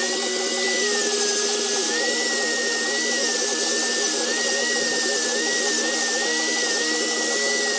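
Angle grinder grinding a metal blade blank held in a vise, its high whine wavering up and down in pitch as the disc is pressed into the metal.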